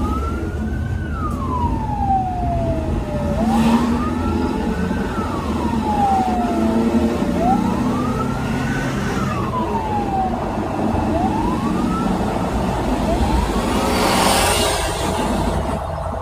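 Ambulance siren wailing, heard from inside the ambulance's cab: a tone that rises and falls in slow sweeps of about three to four seconds, turning into shorter rising whoops in the last few seconds. Steady engine and road noise runs underneath, with two brief rushes of noise, one about four seconds in and one near the end.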